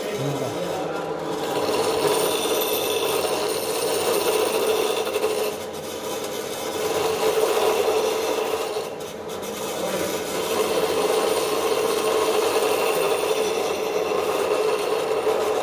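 Bench grinder running at speed while a metal piece is held against its abrasive wheel, a steady motor hum under a rough grinding rasp. The grinding swells and eases in passes, with brief lulls about six and nine seconds in.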